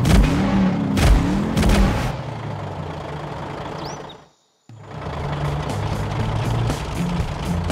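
Cartoon monster truck engine sound effects over background music, with three heavy thuds in the first two seconds. The sound fades and cuts to silence for about half a second just past four seconds in, then the engine and music start again.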